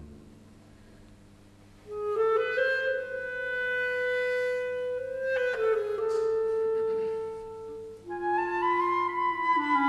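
Orchestral woodwind solo: after a hush of about two seconds, a single woodwind plays a slow melody in long held notes. About eight seconds in, a higher woodwind line, from flutes, joins over a lower sustained part.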